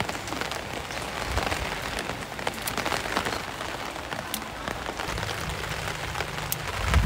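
Steady rain falling on surfaces, with scattered sharp ticks of individual drops.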